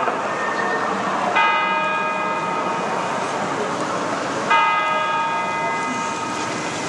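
A large bell strikes slowly, twice in about three seconds, each stroke ringing on and fading. Underneath is the steady murmur of a large outdoor crowd.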